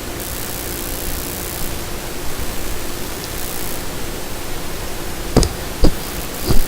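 Steady rushing noise with a faint hum from the running fischertechnik motor setup. Three short knocks near the end, the last the loudest, as a wire is handled and pushed into the breadboard.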